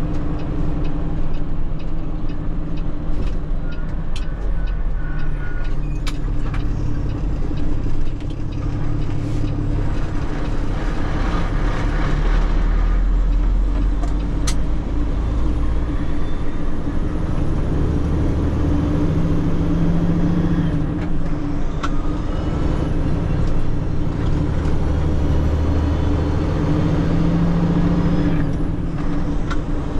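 Tanker semi-truck's diesel engine running with road noise inside the cab while driving, the engine note rising and falling several times as the truck speeds up and slows. A few sharp knocks and rattles sound through the cab.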